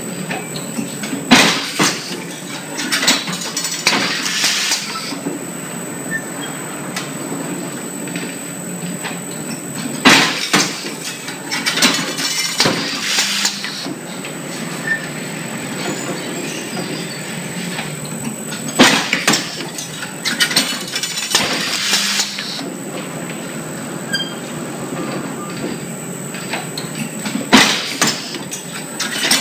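Stainless-steel wire hanger welding machine running through its forming and welding cycles: a loud metallic clank about every nine seconds, each followed by a few seconds of clattering from the mechanism, over a steady machine hum.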